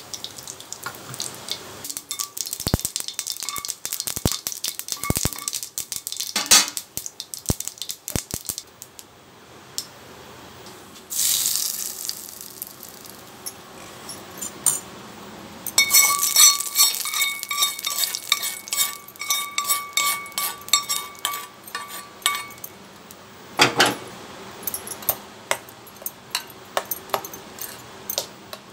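Mustard seeds crackling and popping in hot oil in a small iron kadai, a dense run of quick clicks over the first several seconds. About eleven seconds in there is a short sizzle as the tempering goes onto the chutney. Then a metal spoon scrapes and clinks against the pan and a steel bowl while the chutney is stirred.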